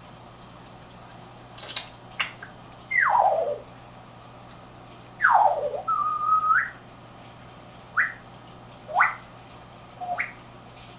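African grey parrot whistling, starting about a second and a half in: two short clicks, then two long whistles that fall steeply in pitch, a held note that rises at its end, and a few short rising chirps.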